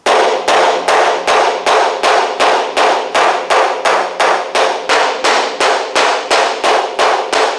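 Curved body hammer striking the steel roof panel of a 1964 Volkswagen Beetle in a fast, even run of blows, about three a second, with a steady ring from the sheet metal under them. Each blow is dragged across the metal to stretch a low spot back out, worked without a dolly behind the panel.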